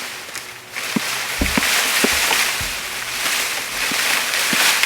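Leafy tree branches rustling and scraping as a limb is worked down through the tree, with a few low thumps about a second and a half in.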